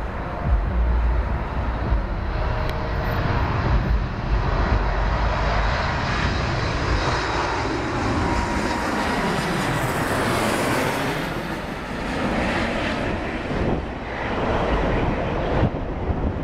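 Airliner engine noise, a loud steady rush that sweeps in pitch around the middle as the aircraft passes, with low rumbling bumps near the start.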